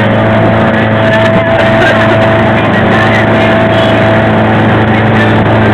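Motorboat engine running at a steady speed while the boat is underway: a loud, even drone that holds one pitch throughout.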